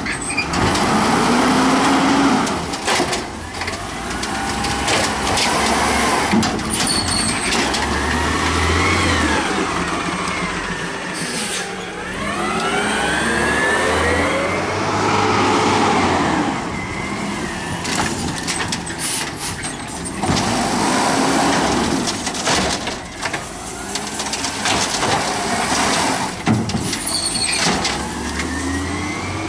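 Natural-gas Peterbilt 320 automated side-loader garbage truck working curbside carts: the engine revs up and down again and again as it drives the hydraulic arm and moves between carts. Short sharp hisses of the air brakes break in several times.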